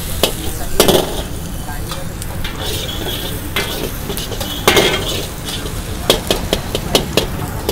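Chopped vegetables sizzling in hot oil in a large metal wok while a metal ladle stirs them, scraping and knocking against the pan. The knocks come more often in the last couple of seconds.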